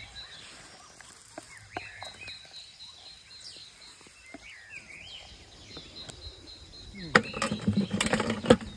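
Birds chirping over a thin steady high tone, then about seven seconds in a louder flurry of knocks and rustling as a hand works at a plastic bucket holding caught eels.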